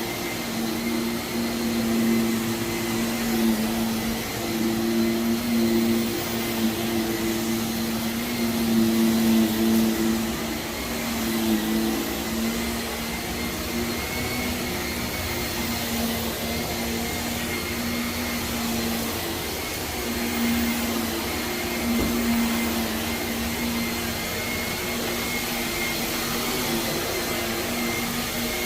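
Vacuum cleaner running steadily over carpet, its motor hum swelling and fading as it is pushed back and forth, pulling dry soil out of heavily soiled carpet.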